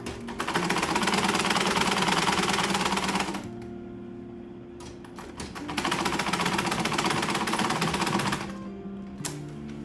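Electric sewing machine stitching at speed in two runs of about three seconds each, with a pause between, over background music.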